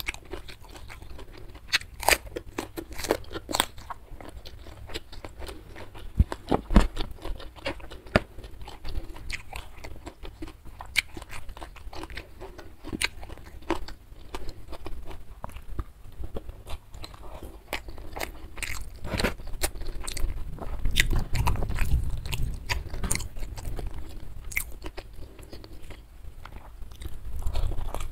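Close-miked mouth sounds of a person eating rice and side dishes by hand: chewing with many sharp crunches and wet clicks, uneven and ongoing.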